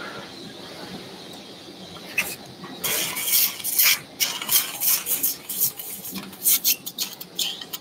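Surgical suction tip drawing blood and fluid out of an open wound: a faint steady high whine, then from about two seconds in, irregular wet slurping hisses as the tip takes up fluid.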